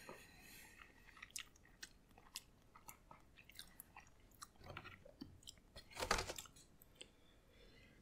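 Close, faint chewing of a mouthful of soft microwaved penne in tomato sauce, with small wet mouth clicks and a sharper click about six seconds in.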